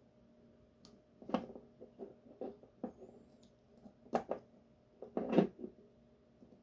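Irregular small metal clicks and scrapes of a tool prying at the retaining clip on an Assa 700 lock cylinder, the clip refusing to come off; the loudest scrape comes near the end.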